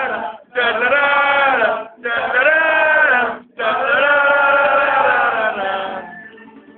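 Male voices singing a wordless, chant-like tune in three long phrases, the last one held about two seconds, dropping away about six seconds in.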